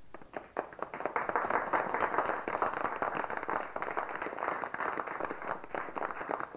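Crowd applauding: a few scattered claps that swell into steady, dense applause within the first second or so.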